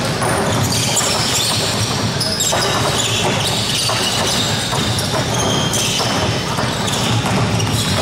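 Several basketballs bouncing on a wooden court while sneakers squeak and shuffle, with the clatter echoing around a large hall.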